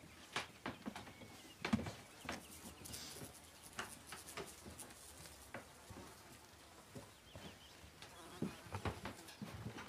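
Footsteps and scattered light knocks, irregular, the loudest a little under two seconds in and another cluster near the end.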